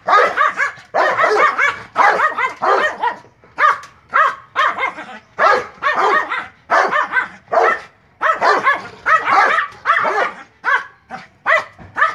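Small white fluffy dog barking at a caged Doberman: high-pitched barks in quick succession, about two a second, with no let-up.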